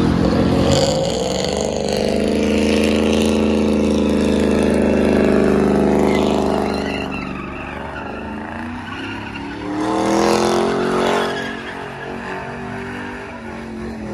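Car engine revving hard and held at high revs with tyres squealing, as in a burnout; the revs drop about seven seconds in, then climb again briefly around ten seconds.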